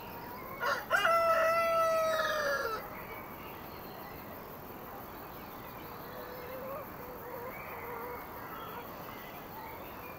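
A rooster crows once, about a second in: a short broken start leading into a long held call that falls slightly in pitch, then a steady quieter background.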